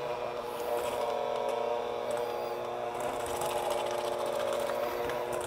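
Electric hand mixer running at a steady whine, its beaters working through stiff shortbread cookie dough in a metal bowl.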